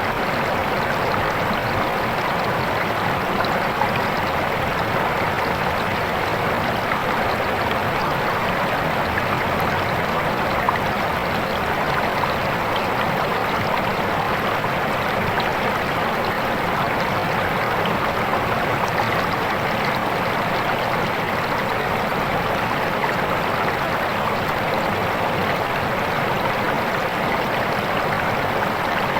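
Swift, clear river water flowing with a steady rushing sound.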